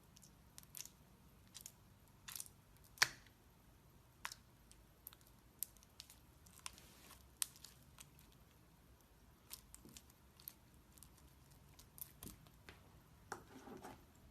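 Faint, scattered clicks, taps and brief crinkling of small objects being handled, with one louder sharp click about three seconds in and a short rustle near the end.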